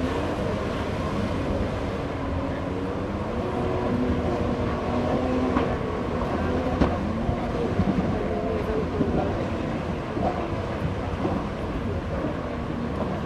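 Jet ski engine running hard, its pitch wavering up and down as it is throttled through turns, over a steady rushing noise.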